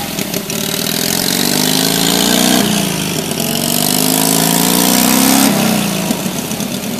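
Onan gasoline engine of a 1964 Rand Mailster running after a hard start has been cured. It is revved up twice, its pitch climbing for a couple of seconds each time before dropping back to idle.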